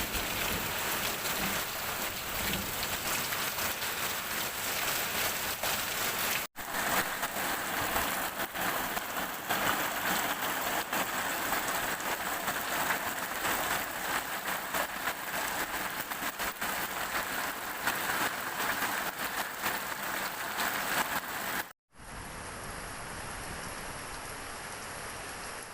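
Heavy rain pouring and pattering hard on surfaces, a dense hiss full of drop hits. The sound cuts out briefly twice. After the second cut, about four seconds from the end, it becomes a quieter, steadier hiss.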